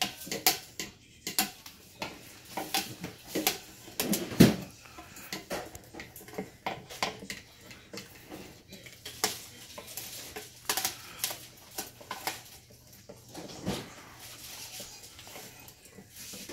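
A dog gnawing and crunching on a dried trachea chew, with irregular crisp cracks and clicks as its teeth work the hard ridged cartilage. A louder knock comes a little over four seconds in.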